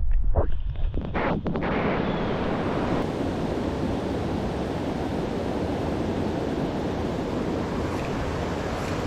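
A mountain creek's water rushing steadily close by. A few soft knocks and low rumbles of handling come in the first second and a half.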